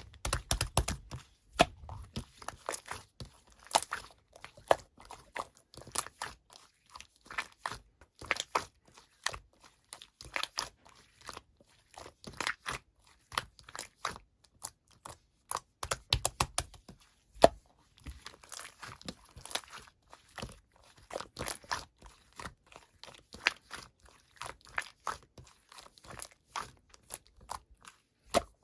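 Slime being squeezed and stretched by hand, giving a dense, irregular run of small clicks, pops and crackles, with an occasional louder pop.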